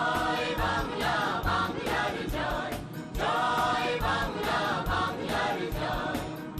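A choir singing with musical accompaniment, in phrases with a brief pause about three seconds in.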